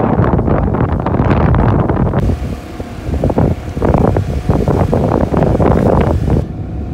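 Wind rushing over the microphone of a riding motorcycle, with the engine running underneath. About two seconds in the sound turns quieter: the engine's steady hum with gusts of wind as the bike climbs a steep lane.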